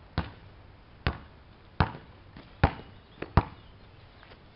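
A series of sharp knocks, about one a second, with two close together a little past three seconds in.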